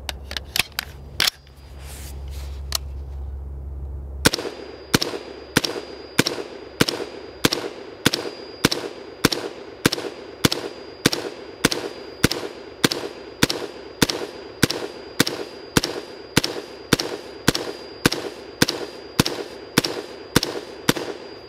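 A few metallic clicks as a magazine is seated in a Brownells BRN-Proto AR-15 replica rifle. About four seconds in, the rifle starts firing 5.56 mm ball semi-automatically in a long, steady string of around three dozen shots, about two a second.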